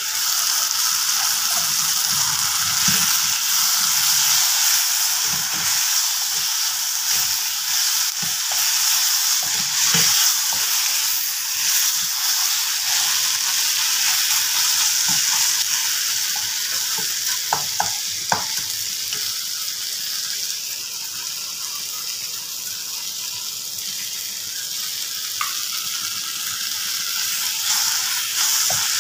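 Chopped ridge gourd, onion and tomato sizzling as they fry in oil in a steel kadai, stirred with a spatula; a few sharp knocks of the spatula on the pan a little past halfway.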